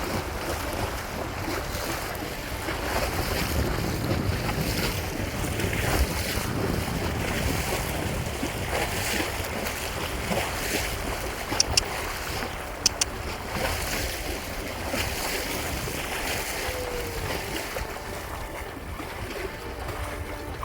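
Wind buffeting the microphone over sea water washing and splashing, with a few sharp clicks about twelve seconds in.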